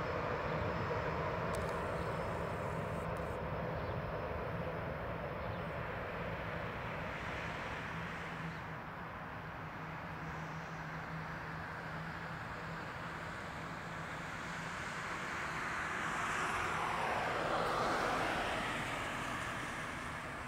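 Gulfstream G650ER business jet taxiing, its two Rolls-Royce BR725 turbofans running at low taxi thrust: a steady jet rush with a low hum beneath it. About three-quarters of the way through it swells louder for a few seconds, with sweeping pitches, then eases off.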